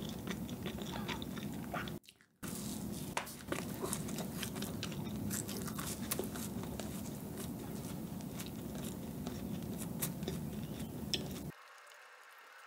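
Close-miked chewing of a soft chocolate financier: many small wet mouth clicks over a low steady hum. The sound cuts out briefly about two seconds in and drops away near the end.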